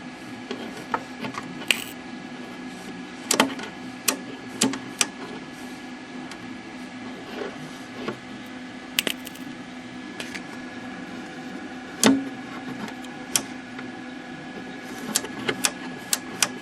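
Scattered sharp clicks and taps over a steady electrical hum from an opened tube television chassis on a repair bench.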